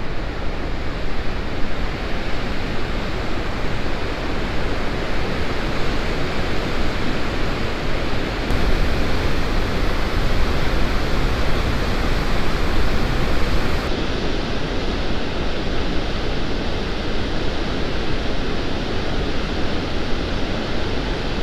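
Wide waterfall on the Little River, running high after days of rain: a loud, steady rush of falling and churning water that shifts slightly in tone twice.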